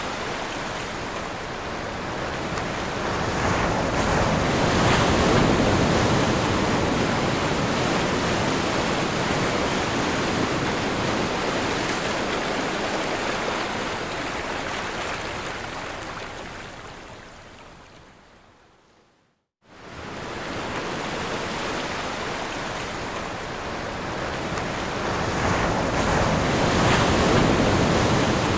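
Ocean waves breaking on a shore: a steady rushing wash that swells about five seconds in, fades away to silence about two-thirds of the way through, then comes back in abruptly and swells again near the end.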